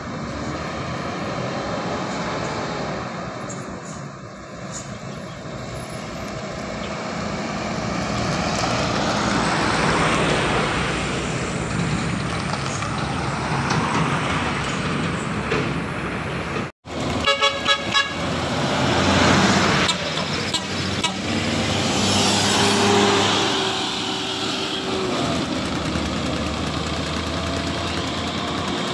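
Road traffic noise of buses and trucks driving past, with engine and tyre sound. After a brief cut a little past halfway, a vehicle horn toots in a quick series of short blasts, then sounds in longer held notes.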